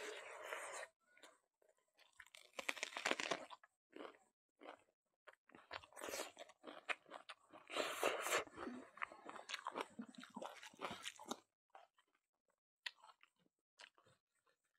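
Close-miked mouth sounds of chewing a handful of rice and smoked pork, with bites and clicks coming in irregular bursts. Over the last few seconds they thin to scattered clicks.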